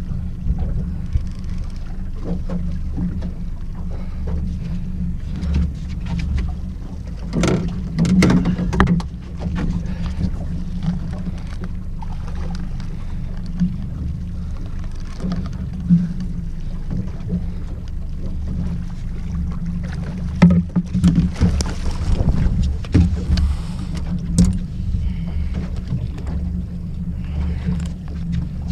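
Outboard motor idling at slow-trolling speed, a steady low drone, with scattered knocks and clatter in the boat and a run of louder knocks from about 20 seconds in as the spotted mackerel is landed.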